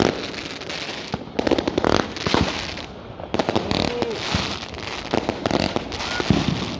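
Mass fireworks: many rockets bursting and firecrackers going off at once, in rapid overlapping bangs and crackling with no let-up.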